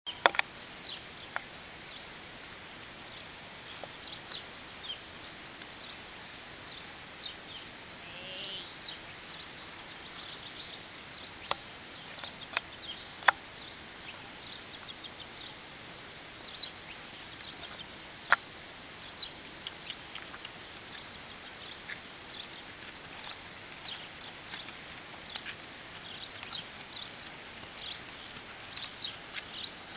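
Quiet rural outdoor ambience: a steady high-pitched hiss with scattered bird chirps and a few sharp clicks, the loudest about thirteen and eighteen seconds in.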